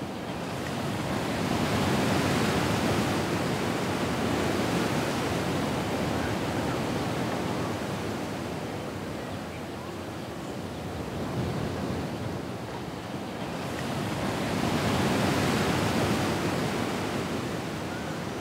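Recorded ocean surf: a steady wash of breaking waves that swells twice, once early and once near the end, and eases off in between.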